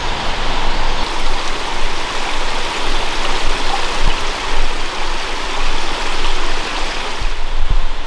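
Small forest stream running over rocks, a steady rushing of water that cuts off about seven seconds in, followed by a few low thumps.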